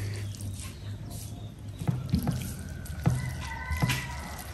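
Wet eating sounds of curry and rice being eaten: a few short, sharp clicks and smacks, about four, over a steady low hum.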